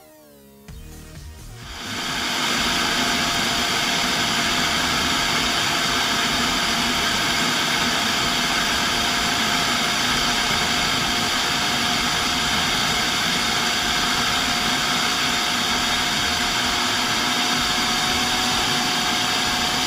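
Food processor motor running steadily, grinding roasted peanuts into smooth peanut butter; it starts up about two seconds in.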